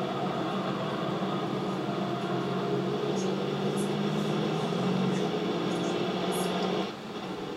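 Car engine running hard under load with road and wind noise, from onboard race-track lap footage played back through computer speakers. The level drops near the end.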